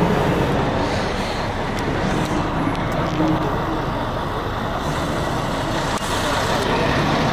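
Steady rumble of motor vehicle engines and road noise.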